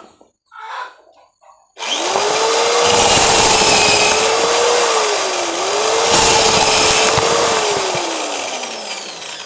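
A cordless drill spinning a corn-shelling attachment starts up about two seconds in. Its motor whine runs under a dense rattle of kernels being stripped off the cob, dips briefly midway, and falls steadily near the end as the drill slows.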